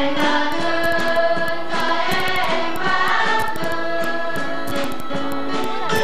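A mixed choir of men and women singing together, moving through long held notes.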